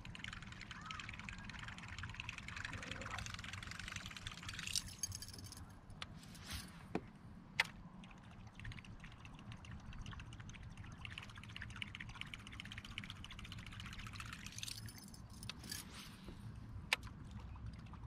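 Water lapping softly against a kayak hull, with fishing-tackle noise from a spinning rod and reel: a short high whir about five seconds in and again near fifteen seconds, and a few sharp clicks.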